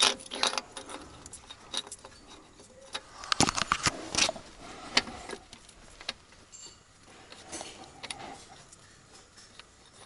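Irregular metallic clinks and knocks as a new starter motor and its mounting bolts are handled and offered up by hand. The taps come thickest about three to four seconds in.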